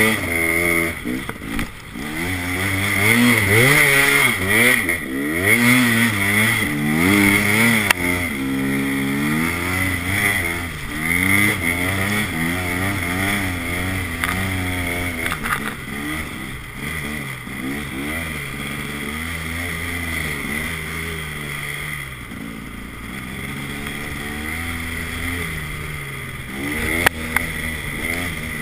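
Dirt-bike engine of a snow bike revving up and down over and over while being ridden, then running lower and steadier in the second half. A single sharp knock sounds near the end.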